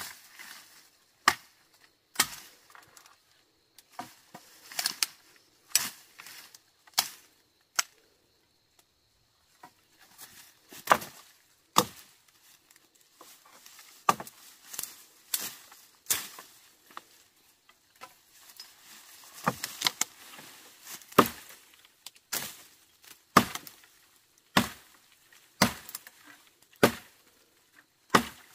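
Repeated chopping: single sharp knocks of a blade striking, coming irregularly about one to two a second, with a short pause about eight seconds in.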